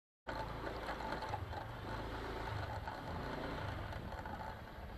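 Motor scooter engine running at a low, steady speed while riding.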